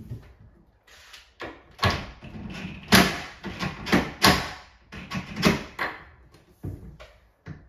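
Cordless driver run in short bursts on the hinge screws of a binding upper cabinet door, mixed with sharp knocks and clatter of the door and cabinet, several of them loud.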